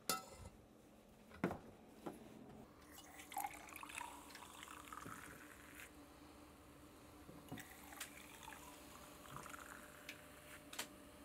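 Carbonated water running from a soda tap into glasses of syrup, fizzing faintly as foam rises, with a few short clicks and knocks.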